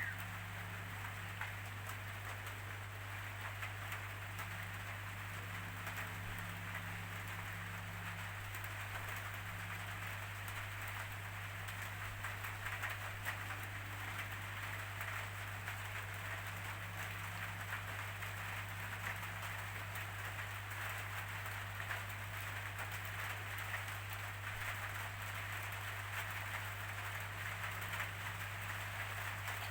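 Steady rainfall, an even hiss of drops falling on surfaces, with a steady low hum underneath.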